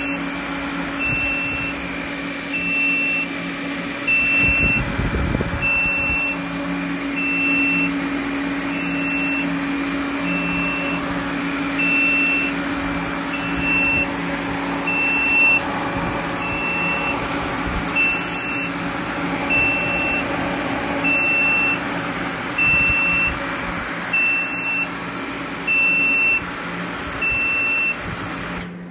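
Everlast TIG torch water cooler running: a steady hum from its pump motor and fan, under a short high-pitched alarm beep repeating about once every 1.4 seconds, the warning that goes with its low-coolant-level light. Hum and beeping cut off together just before the end, as the cooler is switched off.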